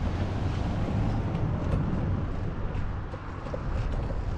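Steady road traffic noise with a low engine hum from a vehicle close by, dipping briefly about three seconds in.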